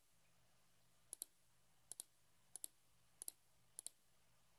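Computer mouse button clicked five times, faint, each click a close pair of ticks: placing the points of a line sketch in CAD software.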